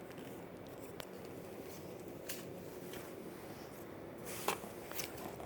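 Faint rustling and a few soft clicks of clothing and packaging being handled, growing busier near the end.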